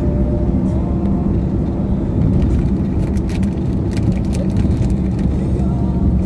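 Car driving steadily along a paved road: a continuous low engine and tyre rumble with a steady hum in it and a few faint light ticks in the middle.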